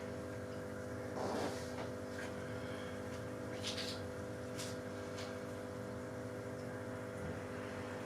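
A steady hum, with a few brief rustling or scraping handling noises over it.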